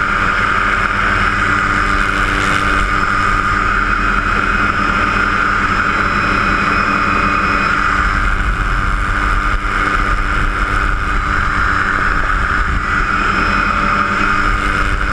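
Helicopter engine and rotor running steadily, heard from inside the cabin as a loud, even drone.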